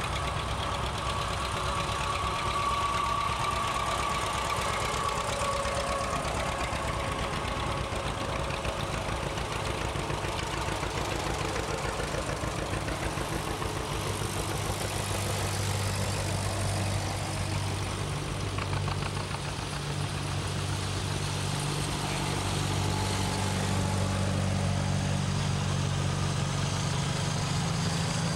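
Vintage farm tractors driving past one after another, their engines running steadily at a low, even pace; the engine sound swells as a tractor comes close, about halfway through and again near the end.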